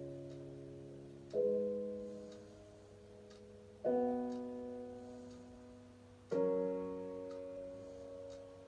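Slow piano music: a chord struck about every two and a half seconds, each one ringing on and fading before the next.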